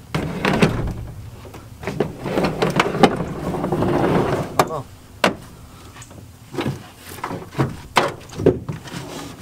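Aluminium Alumacraft john boat being flipped and slid onto a pickup truck's bed: the hull scrapes along for a couple of seconds, then bangs and clanks against the truck in a run of sharp knocks.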